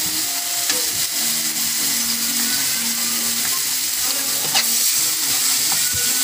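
Tomatoes, onion and ginger sautéing in oil in a wok: a steady sizzle, with a metal spatula stirring and scraping against the pan and one sharp clink about two-thirds of the way through.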